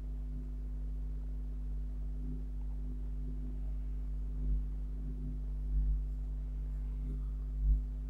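Steady low electrical hum made of a few fixed low tones, with three faint soft bumps in the second half.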